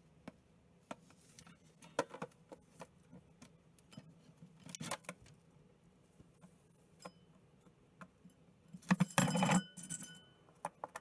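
Small hard toys clicking and clattering as a cockatiel pecks at and knocks them about: scattered single taps, then a denser burst of rattling about nine seconds in.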